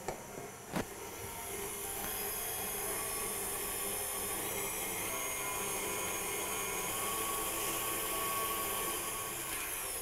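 KitchenAid Artisan stand mixer running steadily, beating butter, sugar, egg and vanilla, after a sharp click about a second in.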